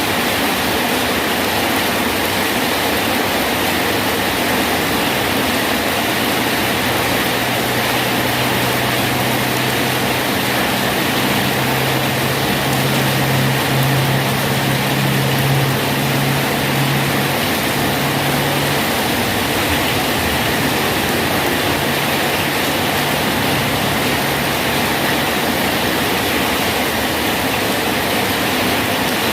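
Steady rain falling on a bridge, an even hiss throughout. A low engine hum rises under it about a quarter of the way in, is loudest around the middle, and fades away well before the end.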